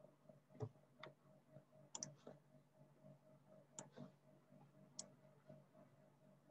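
Near silence broken by several faint, irregular clicks of a computer mouse.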